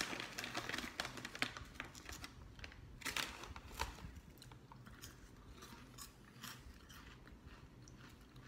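Crisp green pea snack sticks being bitten and chewed by two people: an irregular run of short, sharp crunches, loudest about three seconds in. The plastic snack bag rustles briefly right at the start.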